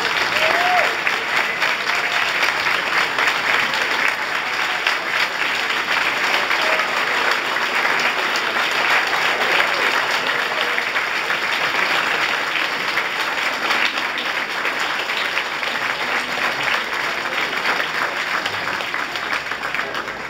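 Long, steady applause from a large audience, many hands clapping at once, easing off slightly toward the end.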